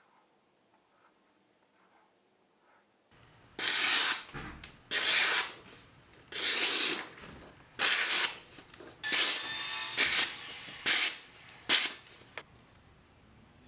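Freshly sharpened 1075 high-carbon steel knife slicing through sheets of printer paper as a sharpness test: about eight crisp papery cuts, each under about a second long. They come after roughly three seconds of near silence.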